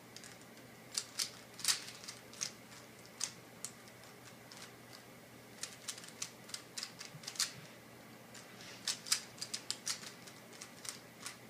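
Plastic Rubik's cube being turned by hand: sharp, irregular clicks of the layers snapping round, coming in short flurries.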